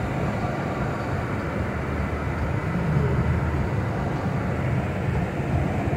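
Steady road noise inside a car driving on a rain-soaked highway: a low rumble of tyres on wet asphalt, with the hiss of heavy rain and spray over it.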